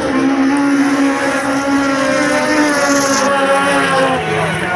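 Several autocross race cars running flat out together, their engines at high revs; one engine's pitch slides down near the end as it lifts off or passes.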